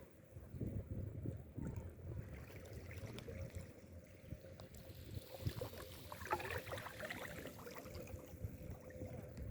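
Wind gusting on the microphone at the seashore, a low uneven rumble, with a faint steady hum underneath and a brief wavering higher sound about six seconds in.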